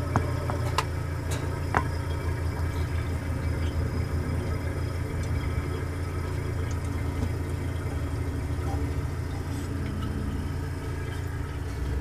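GE Monitor Top refrigerator's sealed compressor running with a steady hum, with refrigerant boiling in the evaporator: the sign that the freshly charged system is cooling.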